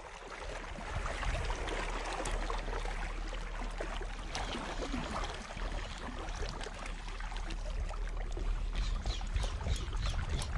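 Sea water lapping and washing over shoreline rocks, a steady wash of noise, with a few faint clicks near the end.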